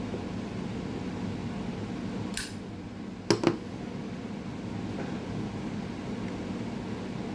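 Zippo lighter handled: a brief rasp about two and a half seconds in, then two sharp metal clicks close together, over a steady background hum; the pipe keeps going out and is being relit.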